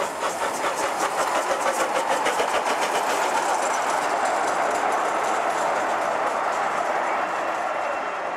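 Miniature-railway steam locomotive hauling a passenger train past, with quick, even beats for the first three seconds or so, giving way to a steady rushing hiss as the train runs on.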